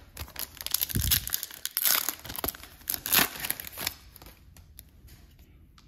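A foil 2021 Bowman Draft trading-card pack being torn open and its wrapper crinkled: a run of crackling, tearing rustles with a few louder bursts, dying down after about four seconds.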